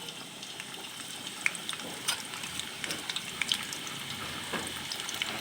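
Finely sliced onions frying in hot oil in a kadai for beresta, a steady sizzle with scattered small crackles and pops.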